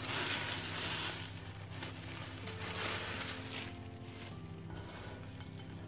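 Plastic freezer bag rustling as crushed M&M's candy pieces are shaken out of it into a glass bowl of cookie dough. The rustling comes in two spells, for about a second at first and again around two and a half seconds in, then dies away.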